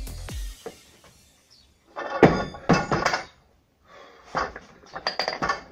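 A loaded scaffolding-tube axle bar, 75 kg in plates, dropped from overhead onto a wooden lifting platform: a heavy thud about two seconds in with bouncing knocks right after, then more clattering knocks near the end as it settles.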